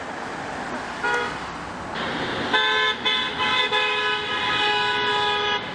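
Car horn honking: a short toot about a second in, then a long honk lasting about three seconds with brief breaks, over passing traffic.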